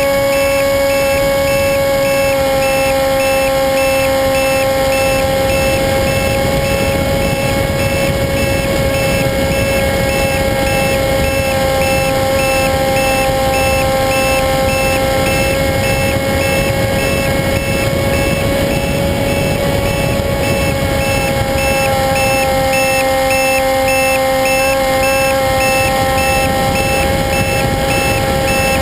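Model airplane's motor and propeller running steadily: a loud, high whine with overtones whose pitch drifts slightly up and down.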